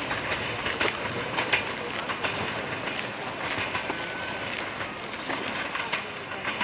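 Siemens Desiro BR642 diesel railcar rolling over points and rail joints, its wheels giving irregular clicks and knocks over a steady rolling noise.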